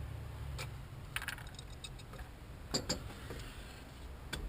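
A few scattered light clicks and clinks, as of small metal tools or parts being handled, over a low steady hum that fades out about a second and a half in.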